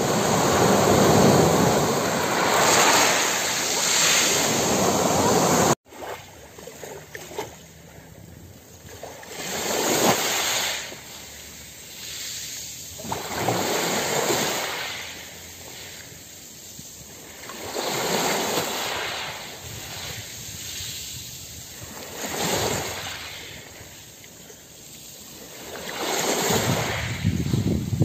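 Small sea waves washing up onto a pebble beach and drawing back over the stones, a surge about every four seconds. For about the first six seconds a louder, steady rush of surf is heard instead, which cuts off abruptly at an edit.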